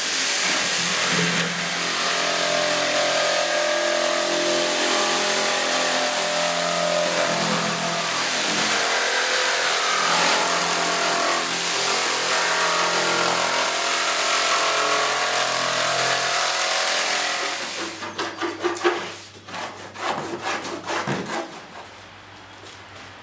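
Power tool working metal: a steady, loud grinding noise with a motor tone that shifts slightly under load, stopping after about seventeen seconds. A few seconds of irregular metallic clicks and knocks follow.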